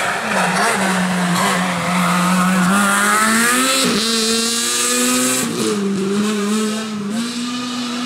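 Toyota GT86 rally car's flat-four engine pulling hard past, its note climbing and then dropping sharply at gear changes about four and five and a half seconds in.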